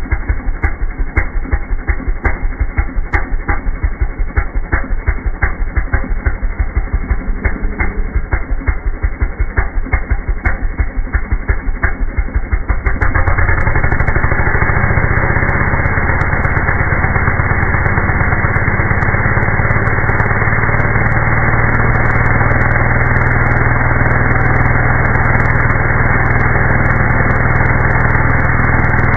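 Two-stroke chainsaw engine slowed down in slow motion: at idle each firing is heard as a separate pop, several a second, which the uploader takes for ignition advance set at the edge of knocking at idle. About halfway the throttle opens and the pops merge into a continuous low drone as the chain cuts into a log.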